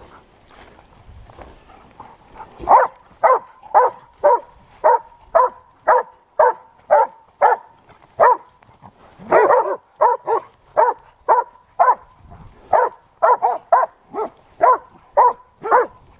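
Boar-hunting dog barking repeatedly at a wild boar, about two barks a second, starting about three seconds in.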